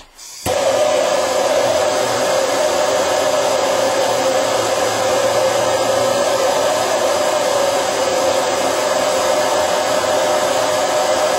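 Handheld gas soldering torch lit with a click about half a second in, then burning with a steady hiss as it heats a copper pipe fitting for soldering.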